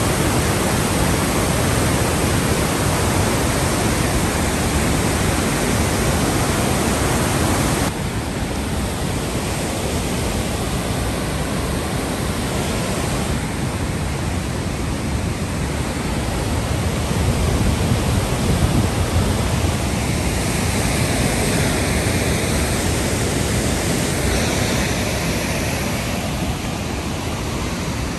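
Whitewater cascade of a mountain creek pouring over boulders: a loud, steady rush of water, dropping a little in level about eight seconds in.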